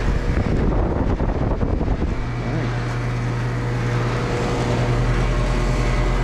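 2001 Carrier central air conditioner's outdoor condenser running on its newly replaced fan motor: a steady rush of air from the spinning fan over a low hum, the hum dropping out for about the first two seconds.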